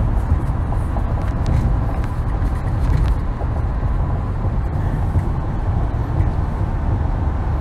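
Steady low rumble of a moving car heard from inside the cabin: tyre and engine noise while driving.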